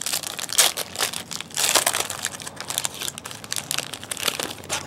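Trading-card pack wrapper crinkling and crackling as it is torn open and handled by hand.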